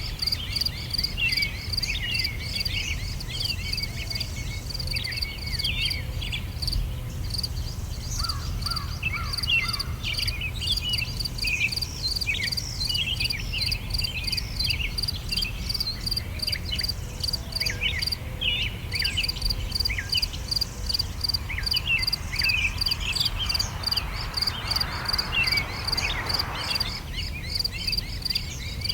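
Summer ambience: many small birds chirping and twittering over a steady, fast-pulsing insect trill, with a low rumble underneath. A brief soft rushing swell comes a few seconds before the end.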